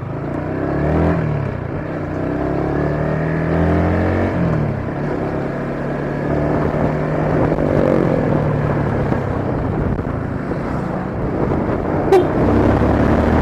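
Motorcycle engine running under way, rising in pitch as it accelerates about a second in and again about four seconds in, then running on steadily. A short sharp click near the end.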